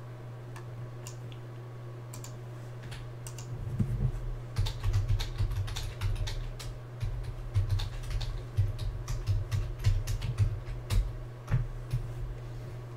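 Typing on a computer keyboard: a quick, irregular run of key clicks that starts about three and a half seconds in and stops shortly before the end, over a steady low hum.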